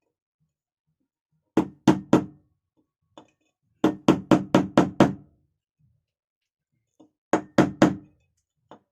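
Light hammer taps seating a new bearing bush in a mixer grinder motor, in three quick runs of strikes (about three, then six, then four), each strike with a short metallic ring.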